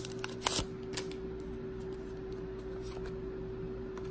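Trading cards being handled: a few light clicks and rustles of card stock in the first second, then only a steady low background hum.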